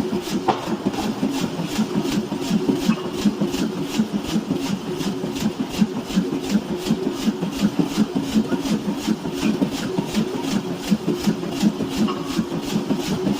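Steady, evenly paced hammer blows on a steel knife blank being forged, about three a second, over a continuous low machine hum.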